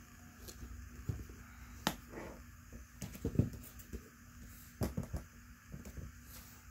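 Irregular knocks and bumps as a pair of Carhartt composite-toe leather work boots is handled and turned over, their rubber soles tapping on a tile floor, with soft rustling handling noise between.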